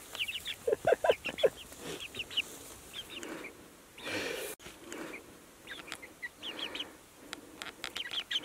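Young chickens peeping in quick runs of short, high chirps, with a few louder, lower clucks about a second in.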